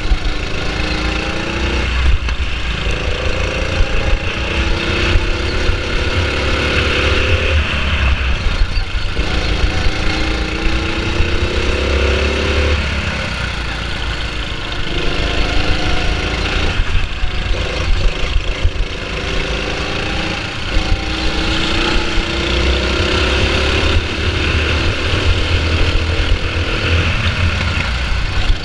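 Go-kart engine heard from the driver's seat, its note rising as the kart accelerates along each straight and falling away when the driver lifts off for the corners, about six times over, with a steady low rumble underneath.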